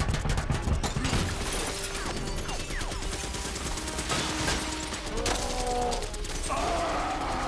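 Film battle sound effects: a fighter jet's cannon firing in a rapid automatic stream, densest in the first second, then bullet impacts, ricochets and shattering glass in a continuous din.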